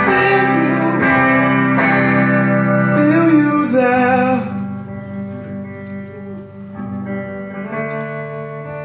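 Two guitars, a red archtop electric and an acoustic, playing sustained chords, with a man's voice holding wavering notes. The music drops quieter about four and a half seconds in, and the chords ring on softly.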